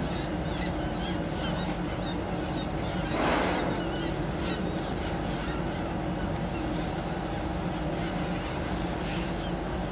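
Seabirds calling over feeding humpback whales, many short high calls through the first half. About three seconds in, a humpback whale blows, a short rush of breath at the surface. A boat engine hums steadily underneath.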